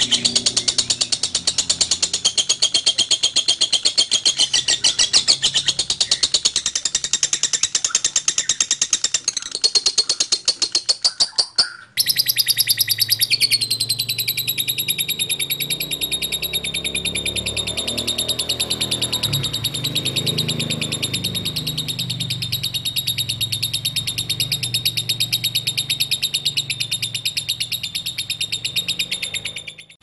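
Lovebirds singing a long, fast, unbroken chattering trill (the 'ngekek' song). It cuts off suddenly about twelve seconds in, and another lovebird's steadier chattering song takes over.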